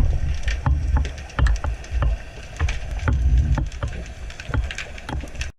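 Muffled, uneven rumbling of water movement with many sharp crackling clicks scattered through it, as picked up underwater during a spearfishing dive; it cuts off abruptly near the end.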